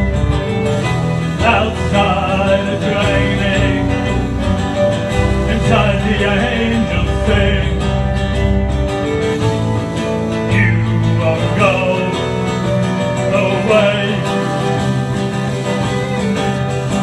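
Live band playing an instrumental passage: electric guitars and bass keep a steady line while a violin plays sliding melody notes over them.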